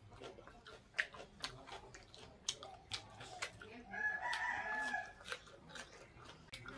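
Close-up eating sounds of fried chicken being chewed, with scattered sharp lip-smacking clicks. A rooster crows in the background for about a second, about four seconds in.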